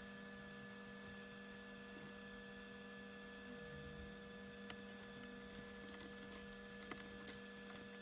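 Faint steady electrical hum with a few faint small clicks.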